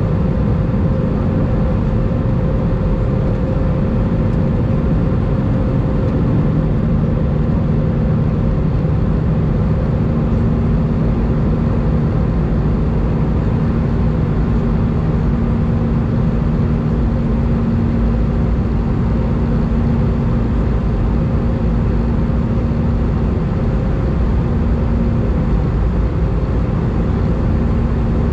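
Steady cabin noise inside an Airbus A319 in flight: a constant rumble of engines and airflow with a steady hum. A second, lower hum joins about six seconds in and fades out around the middle.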